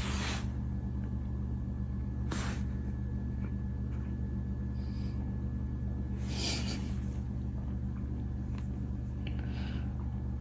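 Kitten purring, a steady low rumble, with a few soft breaths every few seconds as it dozes.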